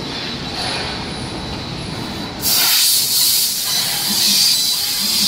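CNC fiber laser tube cutting machine (3000 W) working on steel tube: a rough mechanical rumble, then about halfway through a loud steady hiss starts suddenly as the cutting head begins blowing assist gas through the cut.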